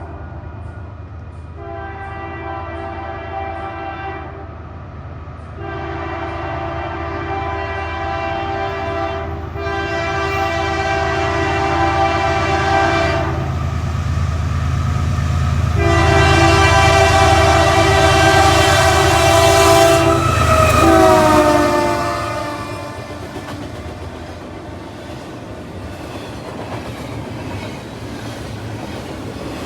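Freight train approaching and passing: the diesel locomotive sounds its air horn in several long blasts over a deep engine rumble. The horn's pitch drops as the locomotive goes by, and the horn ends, leaving the rumble and wheel clatter of the passing cars.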